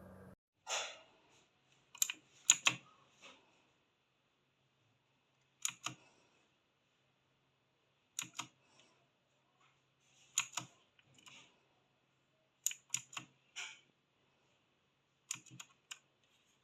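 Keys of a mechanical keyboard being pressed in short clusters of two to four clicks, with pauses of about two seconds between clusters.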